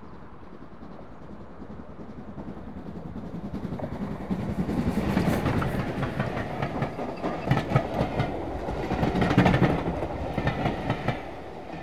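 A train approaching and passing, growing steadily louder over the first few seconds, its wheels clattering over the rail joints at its loudest, then dropping away at the end.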